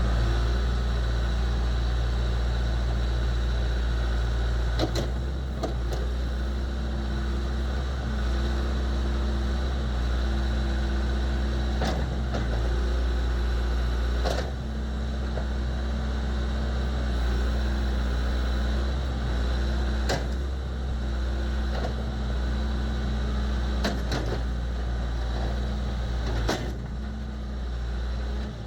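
John Deere 410G loader backhoe's 4.5-litre four-cylinder turbo diesel running steadily, with a few brief sharp knocks now and then.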